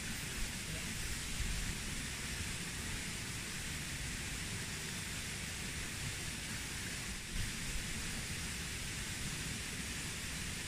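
Steady outdoor background hiss with a low, fluctuating rumble underneath; no distinct sound events stand out.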